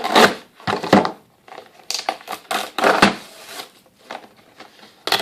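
Packaging being handled: crinkling and rustling with a string of short, irregular handling noises as the box contents are moved about.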